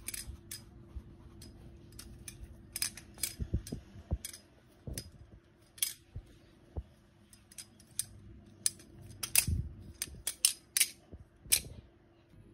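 Balisong (butterfly knife) being flipped: irregular, sharp metallic clicks and clacks as the handles swing around the blade and snap against each other, coming in quick clusters with the busiest runs about three seconds in and again near the end.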